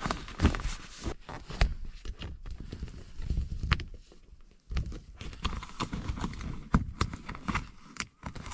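Tent poles being fastened to the clips and hooks of a tent's inner ceiling by hand: irregular sharp clicks and knocks as the clips snap onto the poles and the poles tap together, over the rustle of tent fabric.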